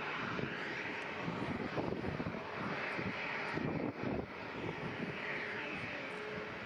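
Airliner jet engines running: a steady rush of noise with a faint steady tone underneath.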